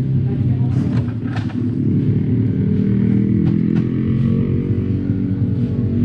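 Small motorcycle engine idling steadily, loud and close to the microphone.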